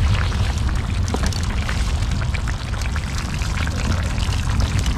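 Mutton curry simmering in a skillet over a wood campfire: steady bubbling with many small pops and crackles, over a low rumble.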